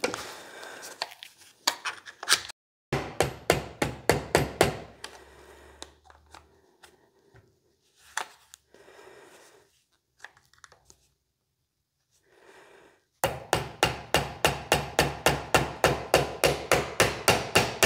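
Rapid runs of sharp knocks, about four or five a second, with scattered single knocks and quiet gaps between.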